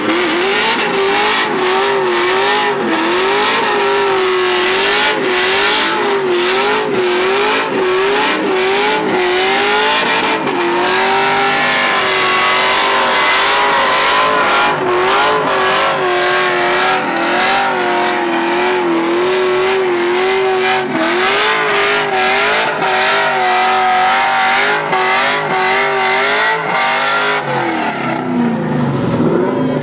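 LS V8-swapped Nissan S13 doing a long burnout, the engine held high in the revs with its pitch wavering up and down as the tyres spin, and many short pops and ticks over it. Near the end the revs fall away.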